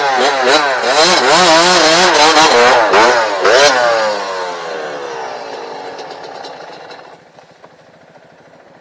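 Dirt bike engine revved hard, its pitch swinging up and down over and over as the bike is worked out of a rut. The note then falls and fades away by about seven seconds in.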